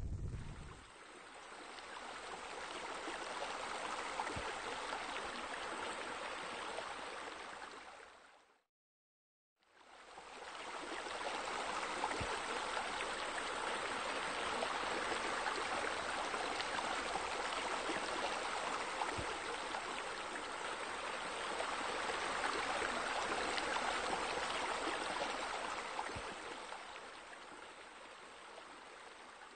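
Pool waterfall water feature splashing steadily. It fades out to a second of silence about nine seconds in, comes back, and fades lower near the end.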